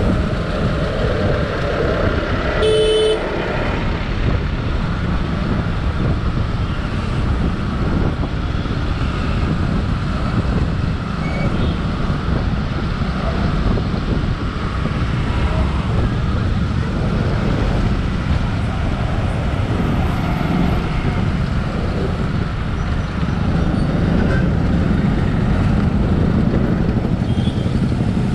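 Steady engine and wind noise of a motorcycle riding through dense city traffic. A vehicle horn honks once, briefly, about three seconds in.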